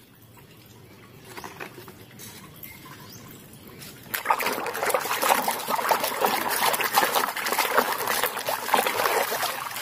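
Water sloshing and splashing in a plastic basin as a toy truck is scrubbed clean by hand. Faint trickling and dripping at first, then loud, continuous churning and splashing from about four seconds in.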